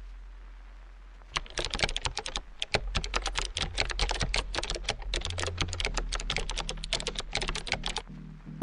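Computer keyboard typing: a fast, uneven run of keystrokes starting about a second and a half in and stopping near the end.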